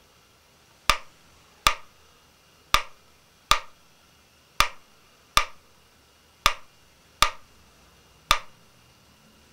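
Wooden pyramid clockwork metronome ticking as its pendulum swings, about one sharp tick a second. The ticks come unevenly, alternating short and long gaps. After nine ticks it stops.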